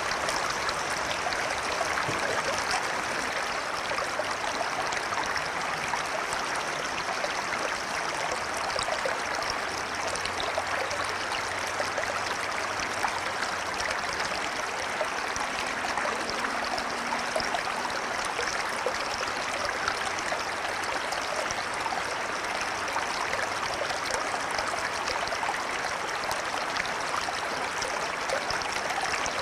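River water flowing steadily over stones, an even babbling rush with small splashes and gurgles.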